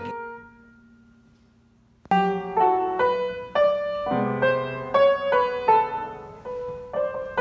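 Music only: a song's last note fades away, then about two seconds in a piano starts playing a melody in separate, ringing notes.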